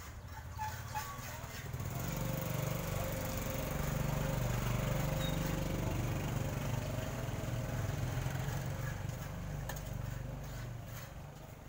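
Small motor scooter engine running as it rides past close by: it grows louder over the first few seconds, is loudest around the middle, then fades.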